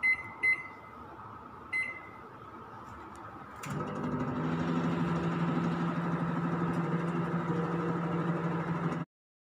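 Microwave oven keypad beeping three times as the 2-minute cooking time is set. About three and a half seconds in there is a click, and the oven starts running with a steady hum until the sound cuts off suddenly near the end.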